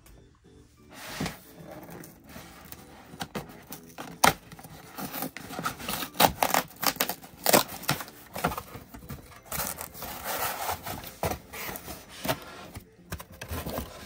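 Corrugated cardboard shipping box being opened by hand: flaps pulled apart and scraping, with irregular crackles, rubs and small knocks of the cardboard.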